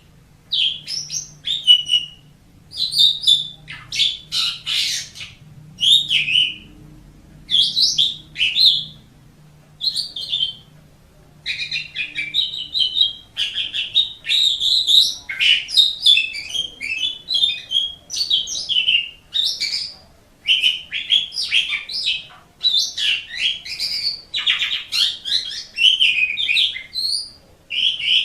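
Asian pied starling (jalak suren) singing a long, varied song of whistles, chatter and harsh notes. It comes in short phrases with brief pauses at first and runs almost without a break from about halfway through.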